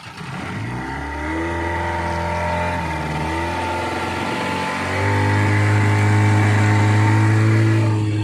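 Fishing boat's engine throttling up: its note rises from about half a second in, holds steady, then steps up higher and louder about five seconds in as the boat gets under way.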